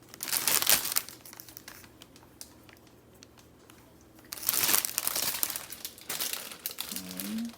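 Plastic packaging crinkling as it is handled. It comes in three bouts, with a quieter pause in the middle.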